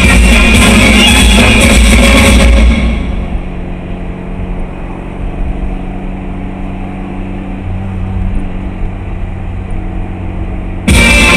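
Music that stops about two and a half seconds in, leaving a car's steady low engine and road drone heard from inside the moving car; the drone shifts slightly in pitch later on, and the music comes back abruptly near the end.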